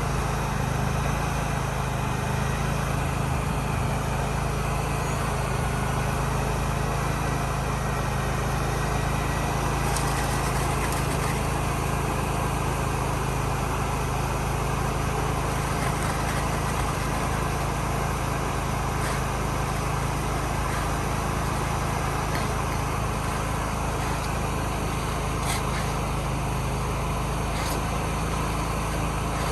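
An engine running steadily at an even speed, with a few faint ticks over it.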